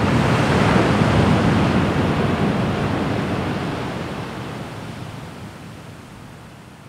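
Rushing noise of sea waves, loud at first and then fading slowly over about five seconds.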